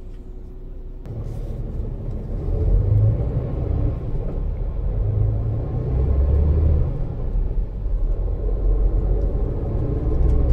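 Neoplan Tourliner coach's diesel engine and road rumble, heard from inside the passenger cabin. It jumps up about a second in and keeps growing louder as the coach gets under way.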